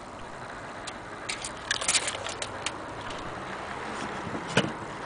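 Irregular light clicks and taps from handling a wooden wall clock case and a tape measure, bunched in the first half, with one louder knock near the end.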